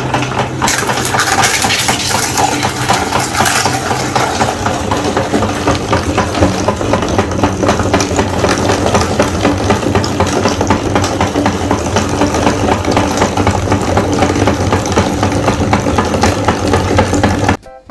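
Meat grinder running steadily: a low motor hum with a dense crackle over it. It cuts off abruptly near the end.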